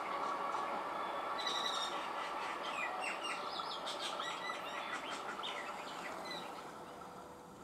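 Birds chirping repeatedly over the steady hum of an approaching electric multiple unit train; everything fades down near the end and cuts off.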